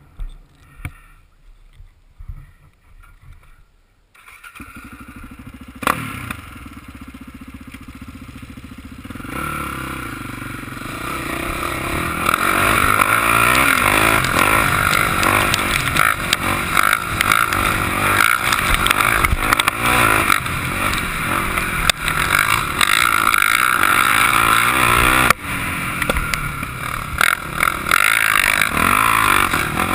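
A few light knocks, then a sport quad's engine starts about four seconds in and idles. From about nine seconds it revs up and runs hard under way, getting louder.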